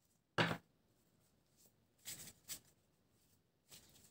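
A few faint, brief rustling scrapes: one shortly after the start, two more about two seconds in, and a slight one near the end.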